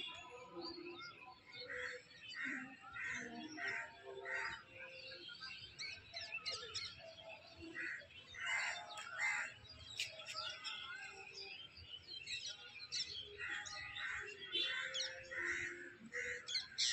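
Birds chirping, with runs of short repeated notes at about two a second coming and going several times.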